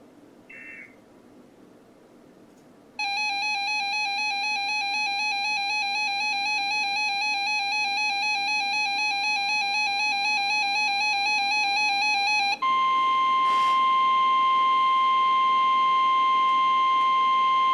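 A short faint beep, then a loud warbling electronic alarm tone for about ten seconds. Near its end the steady 1050 Hz NOAA Weather Radio warning alarm tone comes in, then takes over alone: the signal that a warning broadcast, here a tornado warning, is about to follow.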